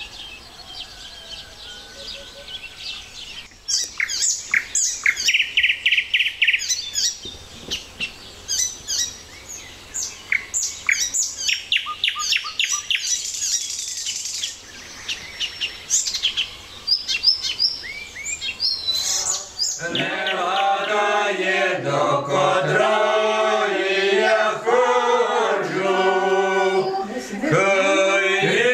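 Songbirds chirping and singing in short, varied phrases and trills. About twenty seconds in, a group of men and women starts singing together.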